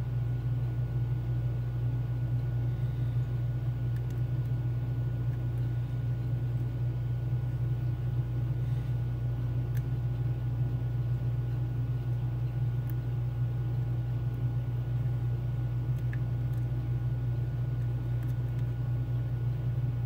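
Steady low hum, with a few faint ticks from a pick working the pins of a Mul-T-Lock Junior lock.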